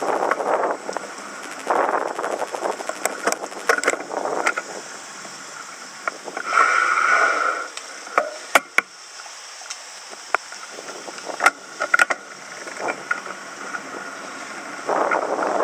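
Wind buffeting the microphone of a camera on a moving bicycle, coming and going in gusts, with scattered sharp clicks and a brief higher-pitched sound about seven seconds in.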